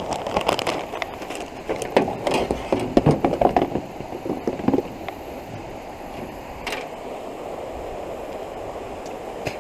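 A run of clattering knocks in the canoe for about the first five seconds, with one more sharp knock a couple of seconds later, over a steady rushing noise that carries on alone to the end.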